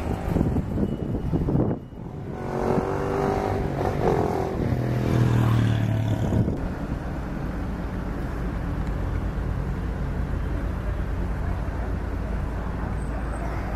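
Car engines idling and pulling forward in a queue, over a steady low traffic rumble; a nearer engine is louder for a few seconds, from about two seconds in.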